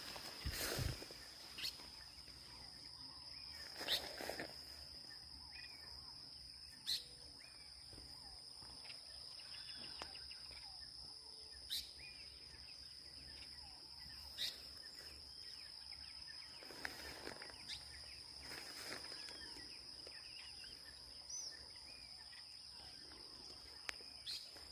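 Dawn countryside ambience: a steady high-pitched insect trill, with scattered faint bird chirps and a few soft clicks.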